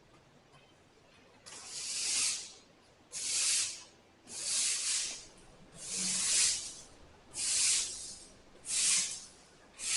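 Broom sweeping a shop floor: seven even swishing strokes, about one every 1.3 seconds, starting a second and a half in.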